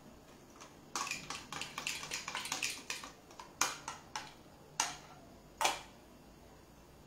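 A spoon clinking and scraping against a small glass of dressing as it is spooned onto a plate: a quick run of light clinks, then four separate taps spread over the next few seconds.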